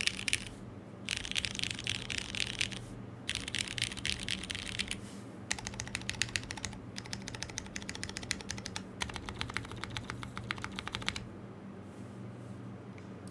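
Custom Typ60 mechanical keyboard with HG Brown switches in a carbon fiber flex-cut plate and CRP keycaps being typed on: three short dense runs of keystrokes, then steady rapid typing from about five seconds in that stops about two seconds before the end.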